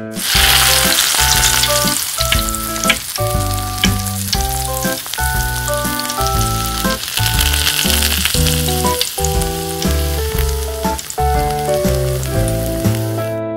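Masala-coated fish sizzling and crackling as it deep-fries in hot oil in a miniature steel wok, with light background piano music. The sizzle starts at once and cuts off suddenly near the end.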